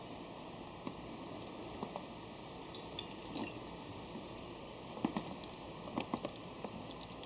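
Faint, irregular small clicks and taps over a steady low hiss, a few of them slightly louder near the middle and toward the end.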